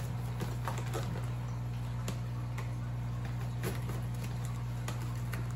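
Knife slitting the packing tape on a cardboard shipping box and the flaps being worked open: scattered faint scratches and clicks of tape and cardboard.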